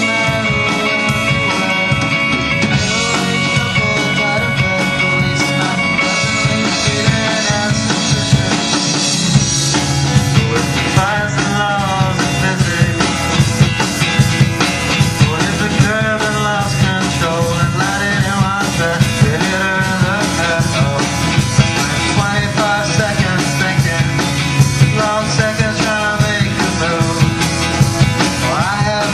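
A school rock band playing live, with drum kit and electric guitar. A voice singing comes in about ten seconds in.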